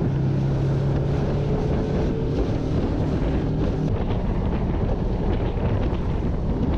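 Boat outboard motor running on the water, its pitch creeping up and then fading out about four seconds in, under heavy wind buffeting on the microphone and the rush of water.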